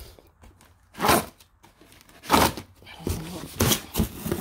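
A cardboard shipping box and bubble-wrapped parts being handled, with rustling and crinkling packaging. It comes in several separate bursts, the loudest about one second and two and a half seconds in, then a quicker run of shorter rustles near the end.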